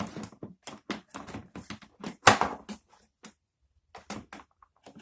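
Irregular plastic clicks and knocks as a lawn mower's grass-catcher bag frame is pushed against the mower body, trying to fit it into its grooves, with a louder clatter about two seconds in.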